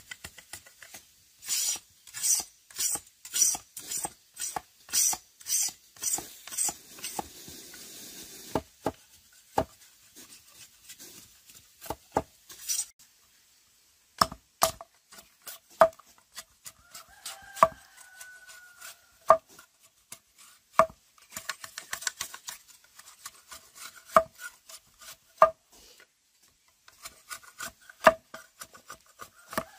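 Rhythmic scraping strokes, about two a second, then scattered sharp knocks and taps.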